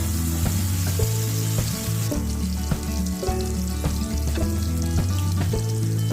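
Food sizzling as it fries in a pan: a steady hiss, under background music with a prominent bass line.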